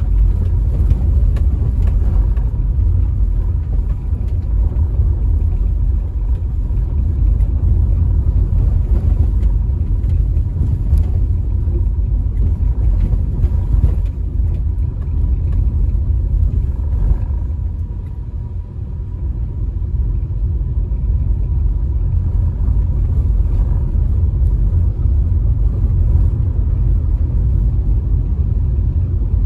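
Steady low rumble of tyre and engine noise inside a moving car's cabin, dipping briefly about two-thirds of the way through.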